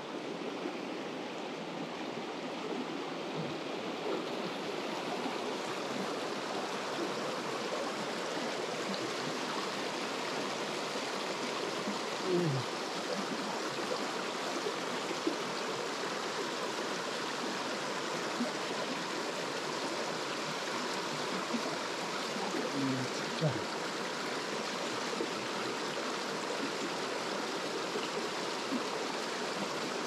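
Mountain stream water running steadily, with two brief low thuds about twelve and twenty-three seconds in.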